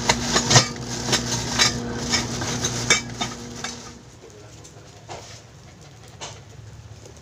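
Steel parts of a knock-down coat and umbrella rack clinking and rattling against each other as they are handled, over a steady electrical hum. After about four seconds it drops to a quieter stretch with only a couple of soft knocks.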